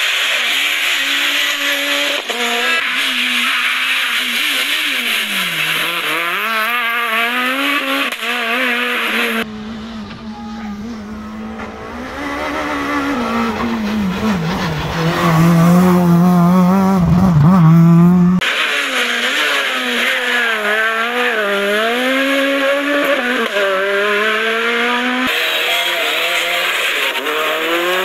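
Super 1600 rally cars' four-cylinder engines revving hard on a stage, the pitch repeatedly climbing and dropping through gearshifts and lifts for corners. Partway through, one car is heard approaching and growing louder.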